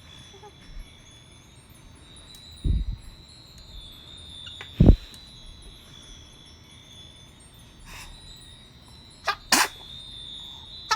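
A sneeze about nine and a half seconds in, as two quick sharp bursts, after two sudden dull bursts about three and five seconds in. A steady high-pitched tone with faint tinkling runs underneath.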